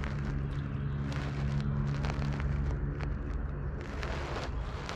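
A motor vehicle's engine humming at a steady pitch, fading out about four seconds in.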